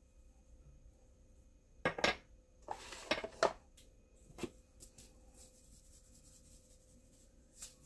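Spice shakers being handled over a glass casserole dish: a few scattered clinks and knocks as containers are picked up and set down, with a short rattling shake of seasoning about three seconds in.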